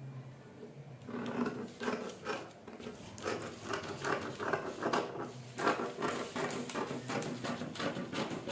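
Scissors cutting through paper pattern pieces: a run of irregular snips with the paper rustling.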